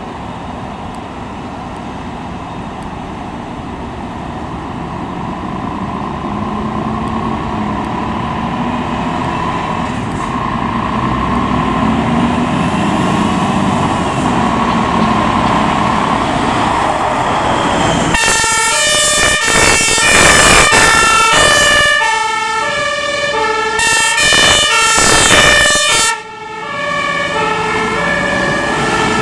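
Fire trucks' diesel engines running and growing louder as they pull out. About two-thirds of the way in, German two-tone sirens start, stepping back and forth between two pitches, overlaid by two loud noisy bursts.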